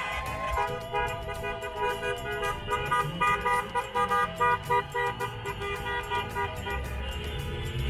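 Car horn honking: a long blast, then a run of short rhythmic toots, honked in celebration by cars driving past.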